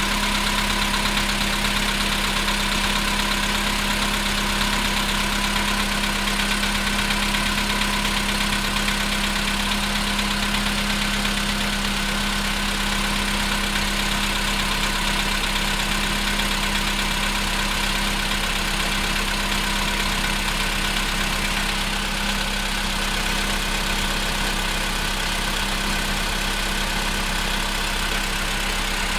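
Car engine idling cold, with a steady knocking running through the idle: the knock that appears while the engine is cold.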